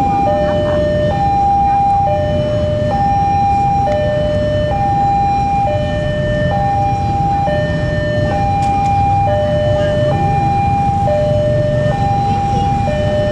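Railway level-crossing warning alarm sounding a two-tone electronic chime, a higher tone and a lower tone alternating, each held just under a second and repeating steadily; it signals that the crossing is closing for an approaching train. A steady low rumble runs underneath.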